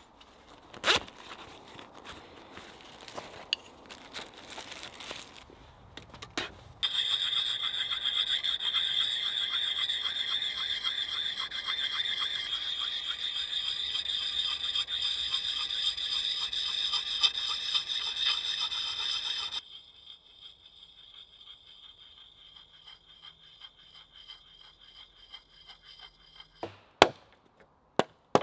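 Sharpening stone rubbed in quick strokes along the steel edge of an axe head: a steady, loud, high rasp lasting about thirteen seconds that stops abruptly. Before it come soft rustles and clicks of a backpack being handled, and near the end the first sharp chops of the axe into wood.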